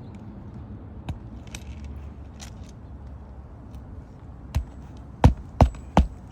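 Hammer blows during repair work on an 18-year-old 3-tab asphalt shingle roof: a single knock about a second in, then four sharp blows in quick succession near the end.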